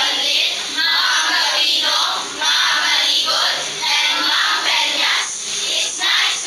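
Many students' voices at once, loud and without a pause.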